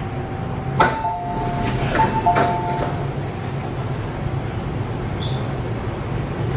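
MTR M-train passenger doors opening at a station: a click as the doors release, then a two-note high-low door chime sounding twice as the sliding doors open, over the train's steady low hum.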